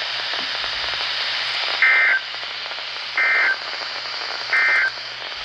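NOAA Weather Radio end-of-message SAME code: three short bursts of two-tone digital data warble, about a second apart, over steady radio hiss, marking the close of the severe thunderstorm warning.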